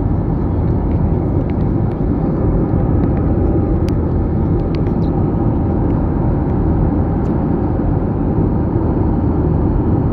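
Steady engine and rushing-air noise inside the passenger cabin of an Airbus A321 airliner.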